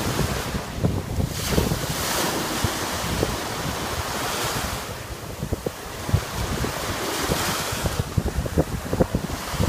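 Small ocean waves breaking and washing up the sand, the surf hiss swelling about every three seconds. Wind buffets the microphone with a low rumble underneath.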